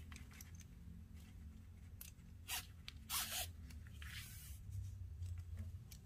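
Nylon paracord being handled and drawn through a small metal shackle buckle, giving a few short scraping, zip-like rustles near the middle, over a low steady hum.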